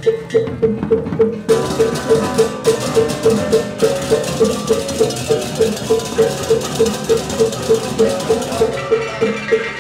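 Balinese baleganjur gamelan processional music. A small gong keeps a steady beat of about three and a half strokes a second, and crashing cymbals and drums come in thickly about one and a half seconds in.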